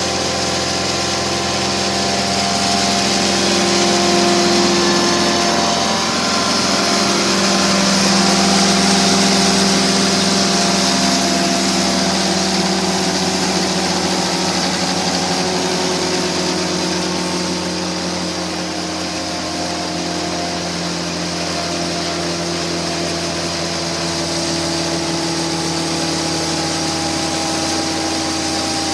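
Engine of a 2013 Altec WC126A wood chipper running steadily, with a hum and hiss that swell slightly a few seconds in and ease off a little past the middle.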